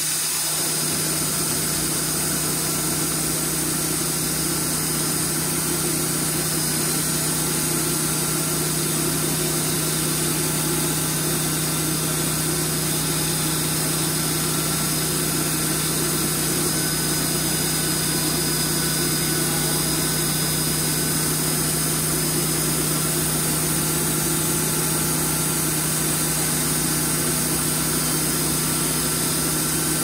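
Homebuilt sawmill's engine running at a steady, even speed.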